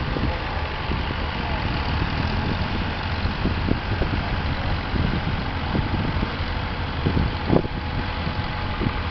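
Tractor engine running steadily with a low rumble, with a few short knocks over it, the loudest about seven and a half seconds in.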